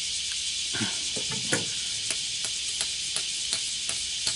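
Light, evenly spaced taps about three a second as the end cap is tapped onto the end of a tarp pole, after a dull handling knock about a second in. A steady high insect drone hisses underneath.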